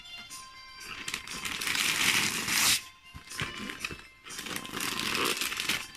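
Wrapping paper being torn off a gift box by hand in two long rips, the first starting about a second in and the louder of the two. Faint background music plays.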